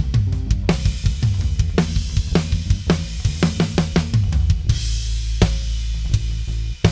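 Recorded acoustic drum kit playing back through a digital mixing console: a steady groove of sharp hits several times a second, with a low note ringing on for about a second past the middle. A tom channel is being EQ'd, its midrange cut around 450 Hz and 4 kHz boosted for stick attack.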